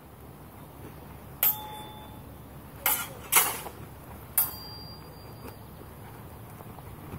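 Steel practice longswords clashing blade on blade in sparring: four sharp clangs between about one and a half and four and a half seconds in, the third the loudest, some leaving a brief metallic ring.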